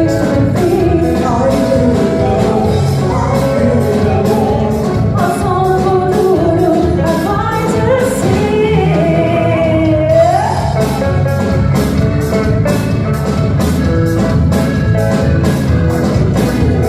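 A live band playing with a singer over a steady drum beat; a long sung note a little after halfway slides upward.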